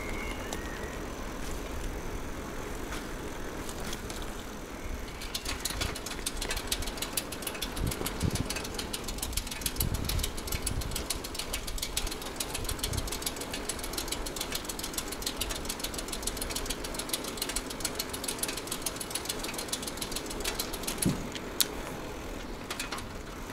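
Bicycle freewheel ticking rapidly as the bike coasts, over steady tyre and road noise. The ticking starts about five seconds in and thins out near the end.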